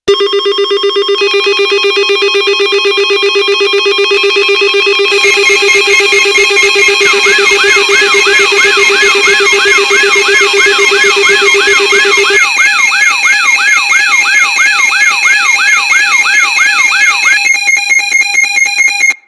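Synthesized emergency-alert tones: several steady electronic tones layered and pulsing rapidly. About seven seconds in, a siren-like warble sweeping up and down about twice a second joins them, and the low tone drops out about twelve seconds in. The whole sound cuts off abruptly.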